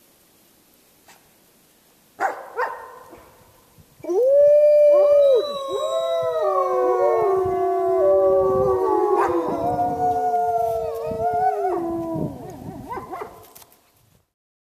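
Pack of gray wolves howling in chorus: several long howls overlapping at different pitches, holding and gliding up and down. They start about four seconds in, after two brief sharp sounds, and die away shortly before the end.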